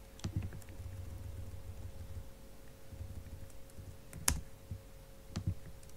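A few sharp computer mouse and keyboard clicks, the loudest about four seconds in, over a low rumble in the first two seconds and a faint steady hum.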